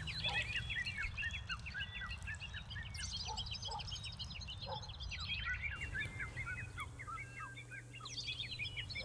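Birds chirping: many short, high calls repeating quickly over a low steady hum.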